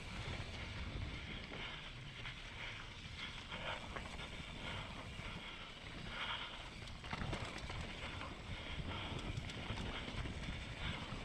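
Mountain bike riding fast down a dirt forest trail: tyre noise over dirt and loose stones and the bike rattling, over a steady low rumble of wind on the microphone.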